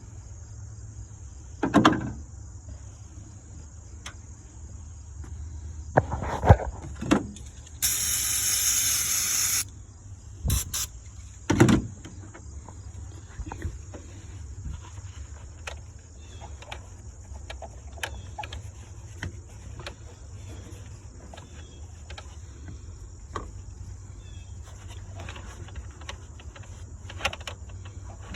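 Aerosol can of throttle body cleaner sprayed onto a rag in one hiss of nearly two seconds, about eight seconds in, amid a few knocks from handling the can and parts. Afterwards, faint scattered ticks and rubbing as the rag wipes inside the throttle body.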